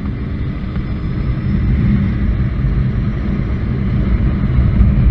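Honda CBR900RR Fireblade's inline-four engine running steadily at road speed while being ridden, with wind rushing over the camera microphone.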